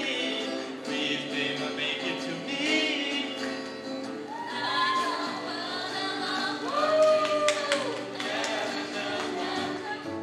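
Mixed group of young men and women singing a song together into microphones, accompanied by an acoustic guitar.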